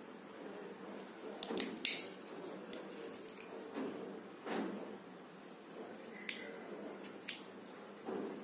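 Small spring-loaded thread snips clicking open and shut and snipping wool yarn: several sharp metallic clicks, the loudest about two seconds in, over the soft rustle of hands handling the yarn and crocheted piece.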